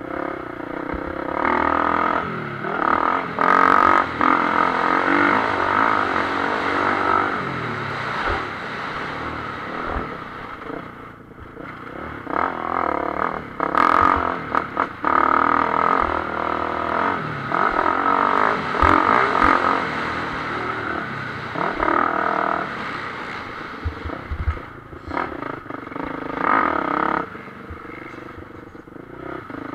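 Motocross bike engine heard from on board while racing, the revs rising and falling again and again as the throttle is opened and closed. A few sharp knocks come from the bike over the rough track.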